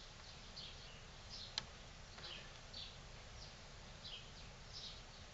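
Quiet, with faint, short, high chirps of birds in the background every half second or so and a single click about one and a half seconds in. The Beltronics Vector XR650 radar detector gives no startup beeps as its display scrolls: its sound has failed.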